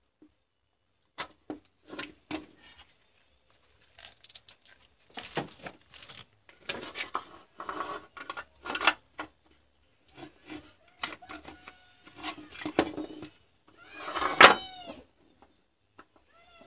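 Irregular clicks, knocks and clatter of a plastic cordless-drill battery housing and a pack of Li-ion cells with their wires being handled and set down on a wooden workbench. A short animal call with bending pitch sounds in the background about fourteen seconds in.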